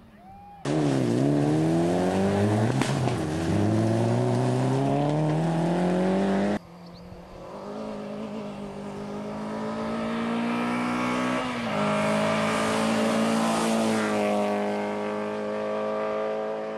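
Rally car engine at high revs, its pitch falling, then climbing, with a gear change about three seconds in. After an abrupt cut about six and a half seconds in, another rally car is heard approaching, growing louder and revving hard, with shifts partway through, then fading near the end.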